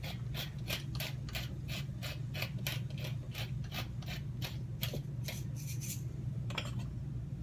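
Pepper grinder being twisted over the pan, grinding with an even clicking of about three or four clicks a second that stops about six seconds in.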